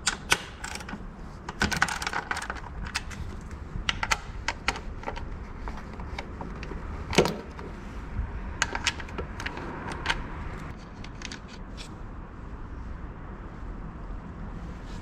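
A ratchet wrench with a 10 mm socket loosening the nuts under a scooter seat: scattered metallic clicks and clinks. A louder single knock comes about seven seconds in.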